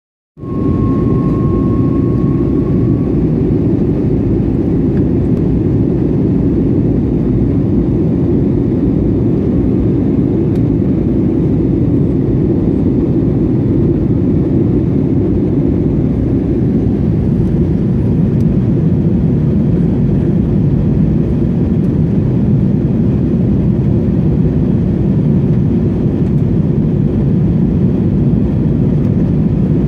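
Steady in-flight cabin noise of an Airbus A320 airliner, a low, even rumble of jet engines and rushing air heard from a seat by the window.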